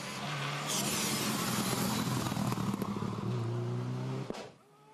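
Subaru Impreza rally car's flat-four engine at full effort as the car passes close through a tarmac hairpin, with a few sharp pops in the middle and the revs climbing as it accelerates away. The sound cuts off suddenly near the end.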